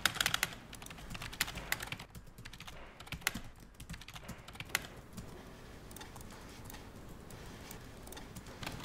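Typing on a computer keyboard: a quick run of keystrokes at the start, then irregular keystrokes that thin out in the second half.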